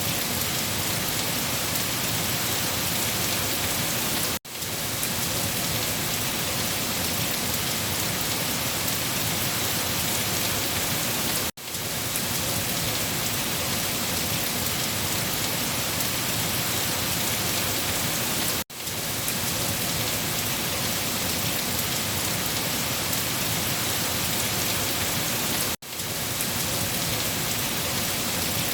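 Steady rain falling on a surface, an even hiss. About every seven seconds, four times, the sound cuts out for an instant and swells back in.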